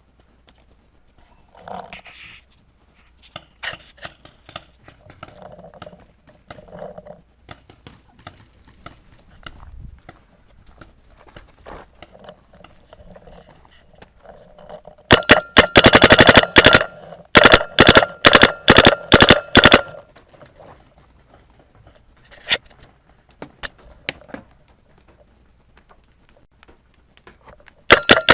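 Paintball marker firing rapid strings of shots, starting about halfway through and lasting some five seconds, with a few more shots later and another string at the end. Before that, only quieter scattered clicks and knocks.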